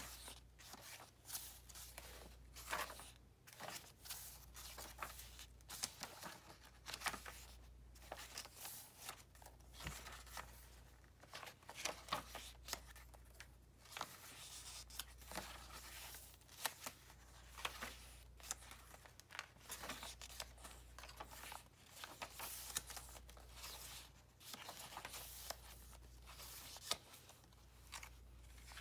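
Paper pages of a handmade journal being turned one after another, the stiff, stained vintage sheets rustling and swishing with each turn at an uneven pace.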